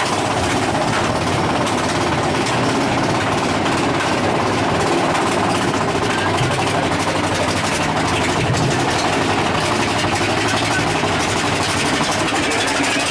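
Big Thunder Mountain Railroad mine-train roller coaster running along its track: a steady clattering rumble of the train's wheels on the rails.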